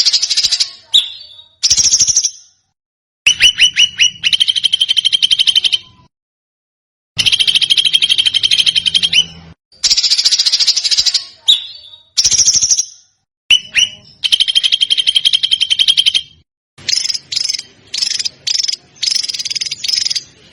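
Recorded small songbird giving a dense, rapid trill of repeated high notes in bursts of one to three seconds, each cut off suddenly by dead silence. These are the 'tembakan' shot-like calls of a masteran tutoring track for competition songbirds.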